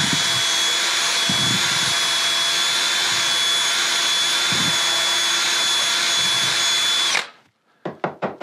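Cordless drill running at a steady speed with its bit in the hosel of an iron head, clearing out leftover glue from the pulled shaft. It stops about seven seconds in, and a quick run of light knocks follows near the end.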